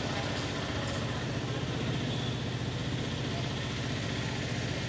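An engine idling steadily nearby, a low, even hum with a fast regular pulse, under faint murmur of voices.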